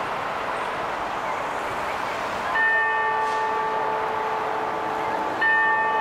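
Clock-tower bell striking twice on the same note, about three seconds apart, each stroke ringing on. Steady city traffic noise runs underneath.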